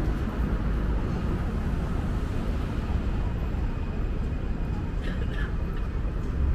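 Busy city street ambience: a steady low rumble with the murmur of passers-by's voices, a little clearer about five seconds in.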